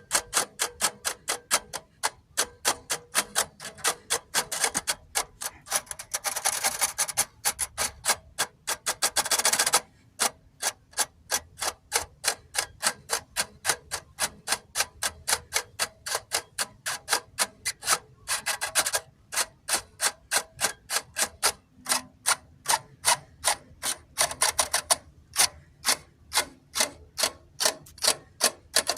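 Steady run of sharp mechanical clicks, about three a second, broken by short, faster rattling flurries four times.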